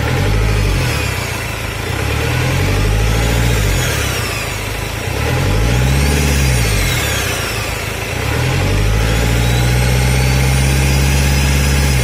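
Car engine being revved up and down several times, held high near the end, on the test run of a freshly rebuilt turbocharger fitted with its compressor inlet open. A high turbo whine rises and falls with each rev.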